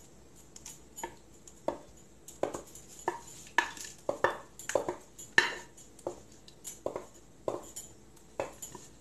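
Wooden spoon scraping and knocking against a metal mixing bowl as thick batter is emptied into a foil baking pan: a dozen or so separate clanks and scrapes at an irregular pace, about one or two a second.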